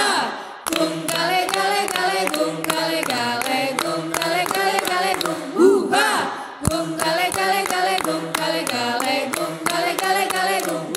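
A group of voices chanting a cheer song in unison, unaccompanied, over steady rhythmic hand clapping at about three claps a second. A rising-and-falling whoop comes at the start and again about six seconds in.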